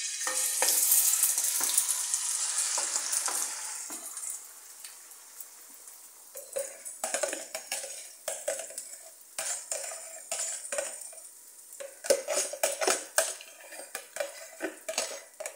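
Beaten egg mixture poured into hot oil in a frying pan, sizzling loudly for the first few seconds, then fading to a softer sizzle. From about six seconds in, a knife scrapes and taps against the bowl in many short strokes as the last of the mixture is scraped into the pan.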